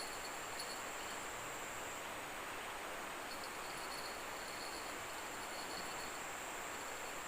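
Insects trilling, with one steady high whine and a softer chirping that comes and goes, over a steady rushing hiss of the river's flowing water.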